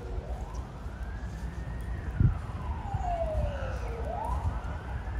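An emergency vehicle's siren wailing, its pitch sliding slowly up and down about every four seconds, over a low rumble. A single low thump sounds about two seconds in.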